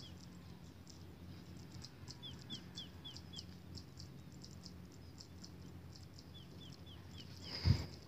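A small bird calling: runs of about five quick, short falling chirps, heard three times, over a faint low hum and scattered high ticks. A brief louder bump comes near the end.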